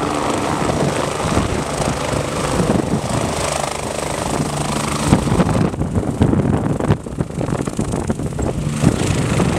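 BK 117 twin-turbine rescue helicopter descending and touching down, its turbines and rotor running steadily. About halfway through, the sound turns into a rough, gusting low rumble.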